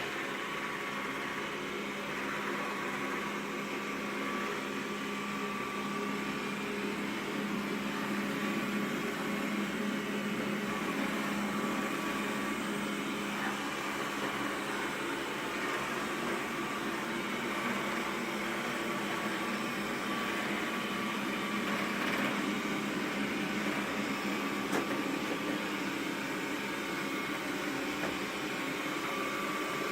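Xiaomi Mi robot vacuum cleaner running steadily, its suction fan and brushes giving a continuous hum.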